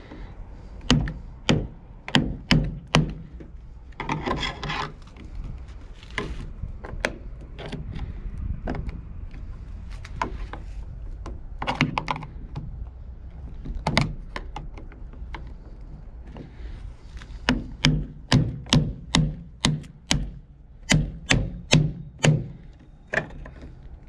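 Screwdriver tapping and scraping against the lock nut on a pickup's fuel door as the nut is worked loose: sharp clicks and knocks, a scraping stretch about four seconds in, and a quick run of knocks, about two a second, in the last third.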